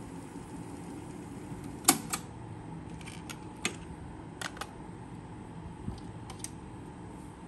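Kenwood KX-400 cassette deck's piano-key transport: a loud clunk about two seconds in as playback is stopped and a second click as the cassette is ejected, with the faint tape hiss stopping. A string of lighter clicks follows as the cassette is lifted out and the cassette door is handled.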